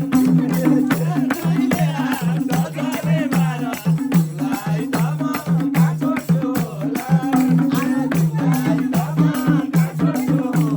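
Nepali dohori folk music playing an instrumental passage between sung verses. A steady beat with a shaker-like rattle runs under a repeating low bass figure, with a wavering melody line above.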